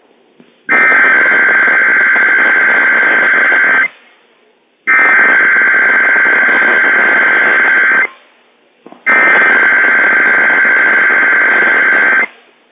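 NOAA Weather Radio EAS alert header: three identical bursts of SAME digital data, each about three seconds long with about a second's gap between them, heard through radio hiss. The bursts open the required weekly test alert.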